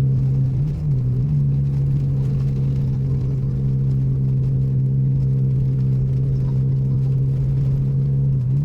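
A motor vehicle's engine running at a steady speed: a steady low hum whose pitch dips and recovers briefly about a second in, then holds level.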